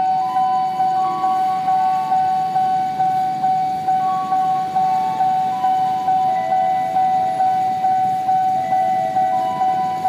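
Railway level-crossing warning alarm ringing because a train is approaching: an electronic ding on one steady pitch that pulses nearly twice a second, with a second tone above it that steps between higher and lower notes.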